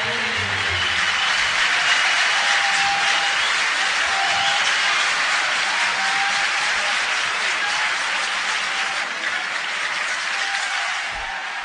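Concert audience applauding, a dense, even clapping that tapers off slightly near the end.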